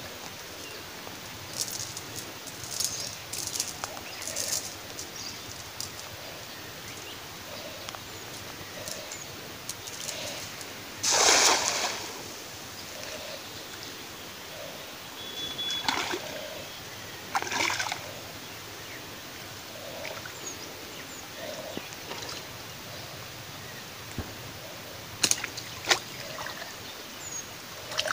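Water splashing in a shallow pond as a cast net is thrown and hauled in, the loudest splash about eleven seconds in as the net lands, then smaller splashes as the net is drawn through the water and the fisherman wades, over a steady outdoor hiss.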